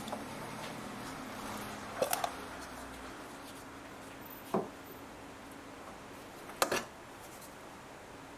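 Ignition coil electrical connectors being unclipped and handled: a few sharp clicks and knocks, a quick cluster about two seconds in, a single one past the middle and a double one later, over a faint steady hum.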